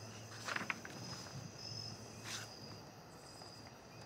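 Crickets chirping steadily at night, with a few soft rustles about half a second in and again a little after two seconds, and a low hum that fades out halfway through.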